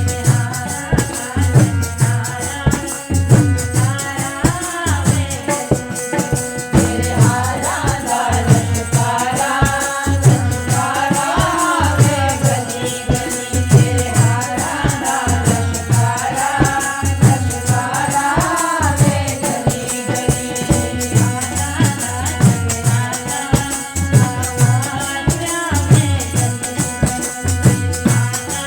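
Devotional bhajan music: a voice sings over steady held instrument tones and a regular percussion beat with a shaken rattle. The singing is strongest from a few seconds in until about two-thirds of the way through.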